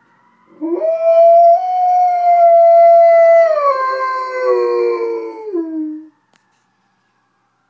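A dog howls one long howl that rises quickly, holds, then steps down in pitch twice before it stops. It is answering fire engine sirens, which can be heard faintly wailing underneath before and after the howl.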